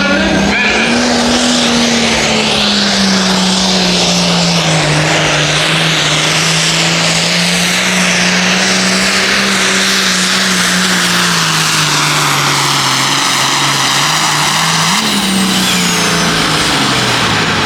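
Hot Farm class pulling tractor's 466-cubic-inch diesel engine running at full throttle under the load of the sled. The engine note sags slowly as the pull goes on, rises briefly near the end, then drops away.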